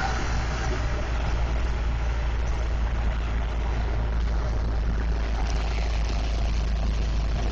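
Steady low drone of a large vehicle's engine and road noise, heard from inside the cab while cruising at highway speed.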